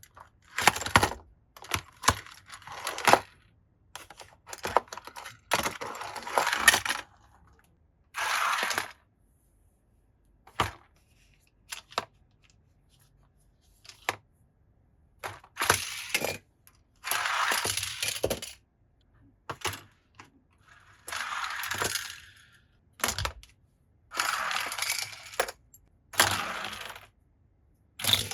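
Die-cast and plastic toy cars and their packaging being handled: irregular rustling and clattering bursts, each up to about a second and a half long, with sharp clicks and clinks between them.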